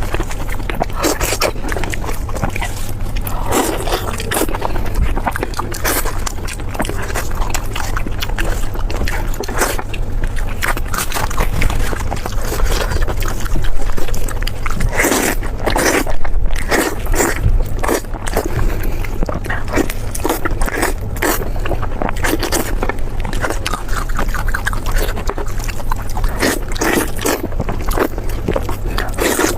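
Close-miked eating sounds: a person chewing and biting food, with many irregular crunches and small clicks over a steady low hum.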